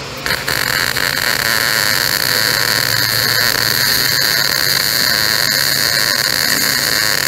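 Welding arc on steel frame parts: a loud, steady hiss that starts suddenly a moment in and holds evenly, with a low hum under it.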